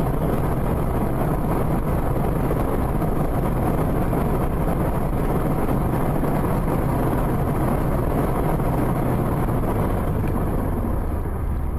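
Steady road and engine noise of a car driving at speed, heard from inside the car, with a constant low drone.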